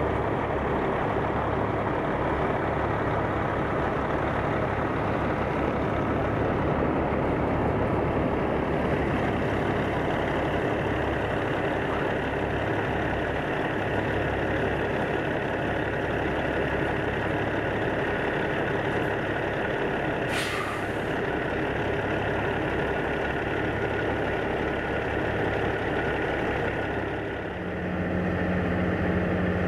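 Diesel engine of a long-hood semi tractor running as it slowly pulls a livestock trailer past, with a short air-brake hiss about twenty seconds in. Near the end it gives way to a steadier low hum of trucks idling further off.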